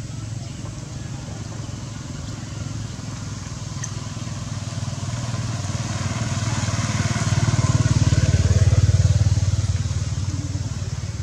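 A motor vehicle's engine running as it passes by, growing louder to a peak about eight to nine seconds in and then fading.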